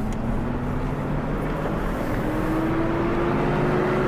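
Car engine running as the car pulls away and gathers speed, with a hum that slowly rises in pitch.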